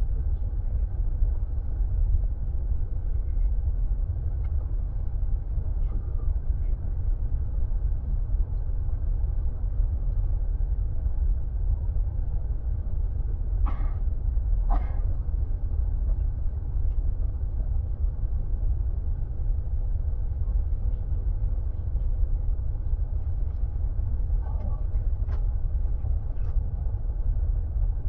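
Airliner cabin noise on approach to landing: a steady, deep rumble of engines and airflow. Two brief sharp clicks about halfway through.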